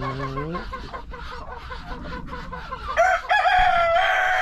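Rooster crowing once: one long, loud call that begins about three seconds in. A shorter rising call comes at the very start.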